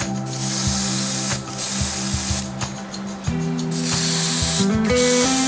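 Gravity-feed airbrush spraying paint in short hissing bursts of about a second each, with brief pauses between as the trigger is worked. Background music plays underneath.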